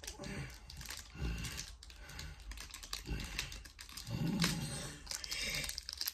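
Close, irregular clicking and crinkling of small paper packets being handled and opened by hand, with a few low vocal sounds in between.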